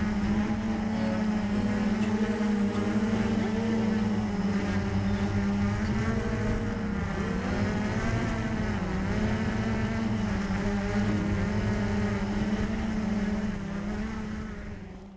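Blade 350QX quadcopter's four electric motors and propellers humming steadily in flight, the pitch wavering up and down as the motor speeds change. The hum fades away near the end as the drone comes down to the ground.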